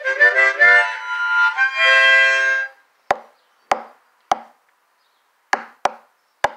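Harmonica played in cupped hands: a run of chords ending on one held chord that stops about two and a half seconds in. Then six short, sharp knocks, spaced roughly half a second to a second apart.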